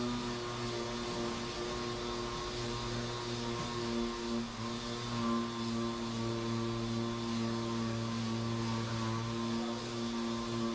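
Dual-action (DA) sander running steadily on a plastic car bumper: a steady motor hum with the hiss of the pad sanding the surface.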